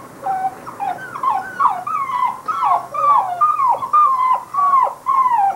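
Basset hound puppies whining, a steady string of short, high cries that slide down in pitch, about two a second.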